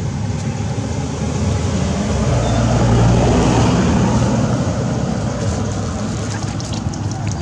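Motor vehicle engine running close by, a steady low hum that swells about two seconds in and slowly eases off.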